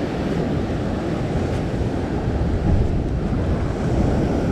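Ocean swell surging and washing against a rock ledge, a steady rushing wash, with wind buffeting the microphone.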